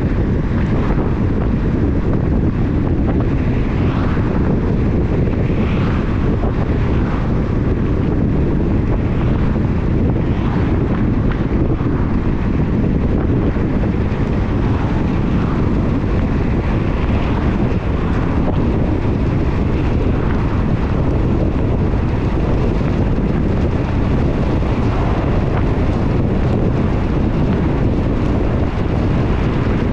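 Steady low rumble of a car driving on a wet road, tyre and wind noise with faint swishes coming and going every few seconds.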